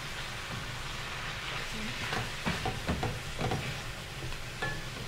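Ground beef and vegetables sizzling in a stainless steel skillet as chicken broth deglazes the hot pan, noisy, while a wooden spoon stirs and scrapes the bottom in several quick strokes about two seconds in.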